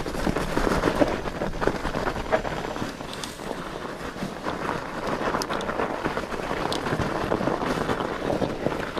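Mountain bike rolling down a snowy, rooty singletrack: tyres on snow and dirt with a steady run of small clicks and rattles from the bike, and wind on the microphone.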